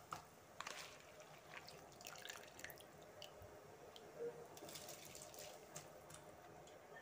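Faint bubbling and popping of water at a boil in a wide pan, with small drips and splashes as soaked basmati rice is dropped in.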